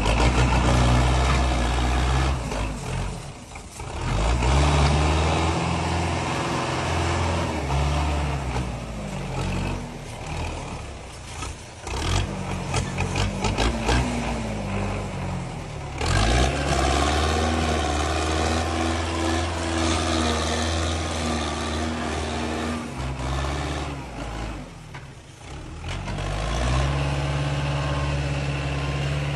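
Belarus 510 tractor's diesel engine running, its speed rising and falling several times, with glides in pitch around the middle and dips in between.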